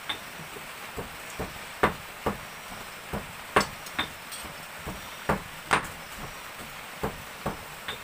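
Boiled petai (stink bean) seeds clicking against a ceramic bowl and each other as a hand stirs and picks through them: a run of irregular sharp clicks, one or two a second.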